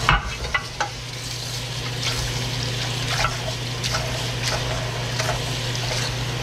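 Kitchen faucet running steadily into a sink, the stream splashing onto raw shrimp in a colander and a glass bowl as hands rinse and handle them, with a steady low hum underneath.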